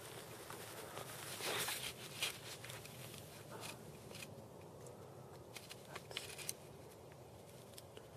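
Faint rustling with scattered soft clicks and ticks over a steady hiss, busier in the first half and again around six seconds in.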